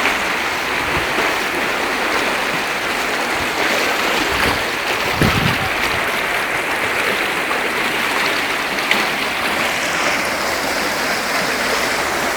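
Floodwater rushing down a flooded street like a river, a steady loud rush of fast-flowing water.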